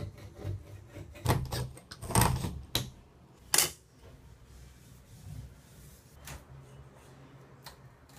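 Plastic scraper scraping old silicone caulk off the tub's caulk line in a run of short, rasping strokes, loudest in the first four seconds, then only faint rubbing.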